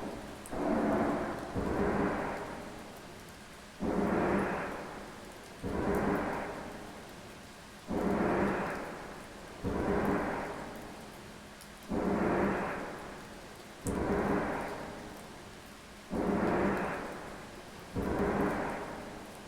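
An unexplained 'strange sound from the sky' of the kind reported in 2015: a deep pitched groan with overtones, each swell starting suddenly and fading away, repeating about every two seconds.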